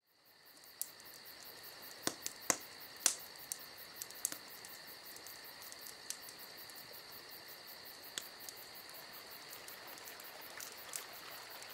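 Crickets trilling steadily, fading in at the start, with scattered sharp clicks, the loudest about three seconds in.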